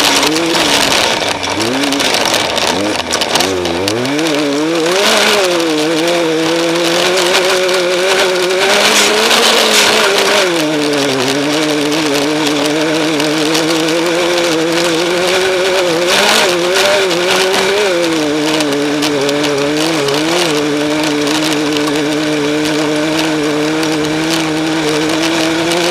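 Off-road race vehicle's engine running hard, rising in pitch over the first few seconds and then holding a fairly steady pitch with small dips, under a steady rushing noise.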